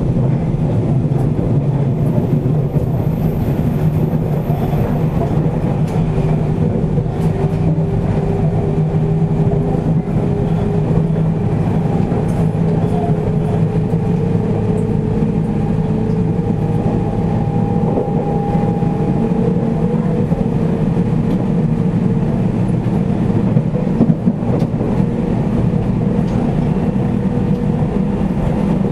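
Interior running sound at the car end of a JR Central 313 series 8000-subseries electric motor car: a steady low rumble of wheels on rail, with a faint whine that rises slightly in pitch partway through and then holds, and a few light clicks.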